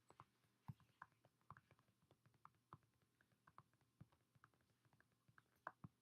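Typing on an iPad during a typing test: soft, quick, irregular finger taps, several a second.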